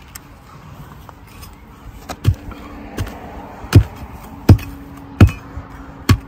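A shovel chopping down into soil and tree roots: six heavy thuds, about one every three-quarters of a second, starting about two seconds in.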